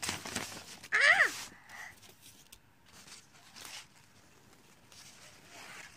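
A young child's short high vocal sound, sliding down in pitch, about a second in, amid soft rustling of paper and stencil sheets.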